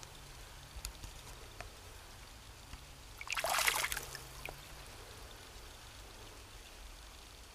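Stream water sloshing and gurgling for about a second, a little past three seconds in, as the camera breaks up through the surface. Otherwise only a faint low rumble with a few small clicks.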